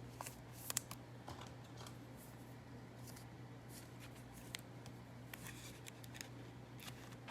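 Faint, scattered clicks and rustles of trading cards and their packaging being handled, the sharpest a quick cluster near the start, over a steady low electrical hum.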